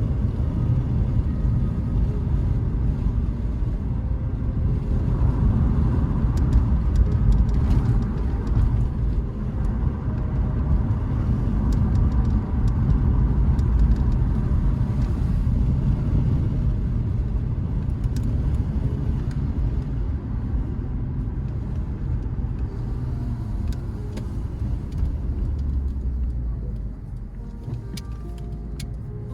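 A car being driven, with a steady low rumble of engine and road noise and scattered light knocks. The rumble eases off near the end.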